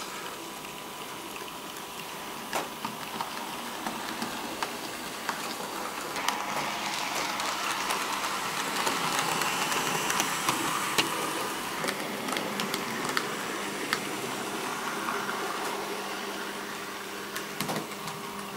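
TT-scale model BR 58 steam locomotive, newly arrived and being run in, running laps on the layout: a steady electric motor and wheel whir with light clicks from the track. The sound swells in the middle and fades again as it passes the microphone.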